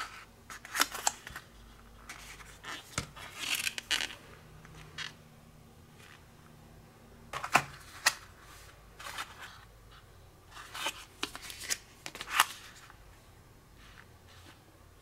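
Thin clear plastic candy molds being handled: scattered clicks, taps and crackles of the plastic as the trays are picked up and moved about on a wooden table, with quiet gaps between.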